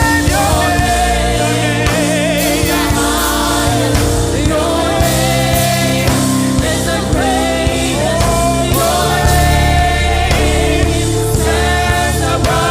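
Gospel praise song: a choir singing with a full band, bass and drums underneath.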